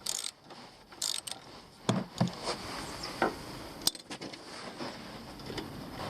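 Metal hand tools and car parts clinking and knocking, with a few sharp clinks about two seconds in and another near four seconds, during work on a Mini Cooper R56 tie rod end.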